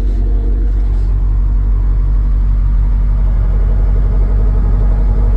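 Skid steer engine running steadily with a low rumble.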